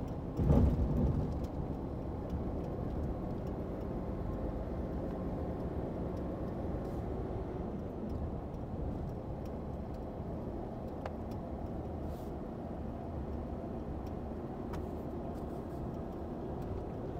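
Hino Profia heavy truck driving at a steady pace: continuous engine and road noise, with one brief thump about half a second in.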